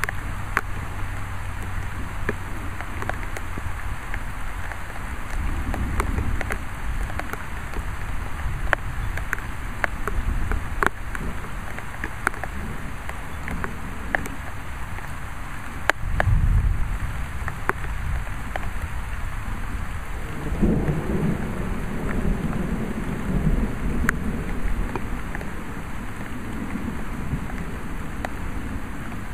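Thunderstorm: rain falling steadily, with frequent sharp taps of drops landing close by. Low thunder rumbles through it, loudest in a burst about 16 seconds in, with another rolling rumble from about 20 to 25 seconds.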